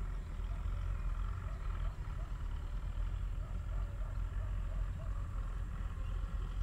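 Outdoor lakeside ambience: a steady low rumble under a continuous higher chorus, with faint short animal calls repeating about twice a second.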